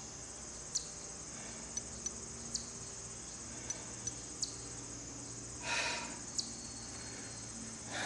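Steady high-pitched insect chorus, like summer crickets, with scattered small clicks and a short breathy rush about six seconds in.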